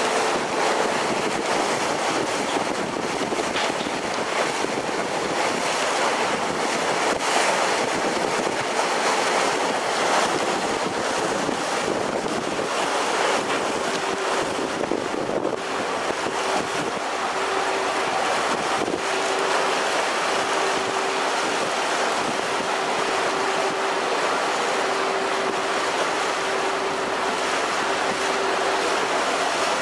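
Wind buffeting the microphone over the rush of water along the hull of a passenger ferry under way. A steady engine hum comes through from about halfway in, fading in and out.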